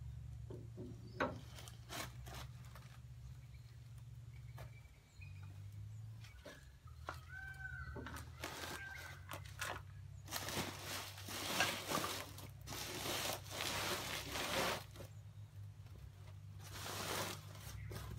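Cloth rag rubbing and scrubbing along a tractor's steel kingpin shaft in long rough bursts in the second half, under a steady low hum. A few light metal clicks come in the first couple of seconds, and a short bird call chirps twice in the middle.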